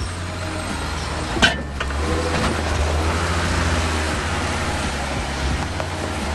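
Off-road 4x4 engine running low and steady while crawling up rocky ledges, with one sharp knock about a second and a half in.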